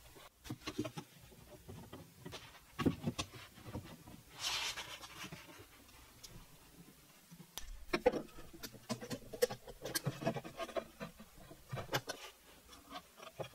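Scattered knocks and clicks of plywood drawer-box parts and clamps being handled and set during a glue-up, with a brief rustle about four and a half seconds in.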